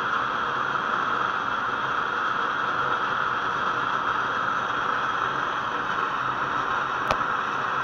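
Pressurised methylated-spirit (alcohol) stove burning, its jets giving a steady hiss. A single sharp click about seven seconds in.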